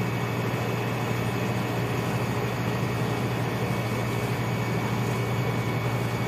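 A steady low mechanical hum under a constant hiss, unchanging throughout.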